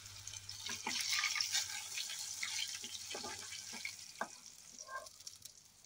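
Chicken pieces deep-frying in hot oil in an aluminium kadai: a crackling sizzle, strongest in the first half and dying down toward the end, with a few clicks of a metal slotted spoon against the pan as a fried piece is lifted out.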